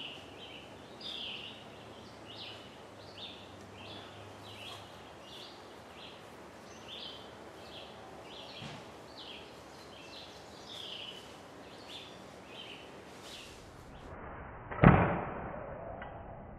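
A bird sings a run of short high chirps, about one every three-quarters of a second. Near the end a compound bow is shot: one loud, sharp thump of the string's release that dies away over about a second.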